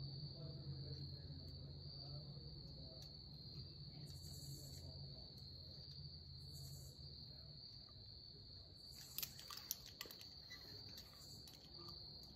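Faint, steady high-pitched trill of crickets, with a few sharp clicks about nine to ten seconds in.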